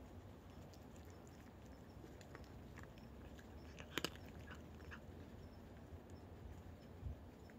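Cats faintly crunching dry kibble, a scatter of small crisp clicks, with one sharper double click about four seconds in.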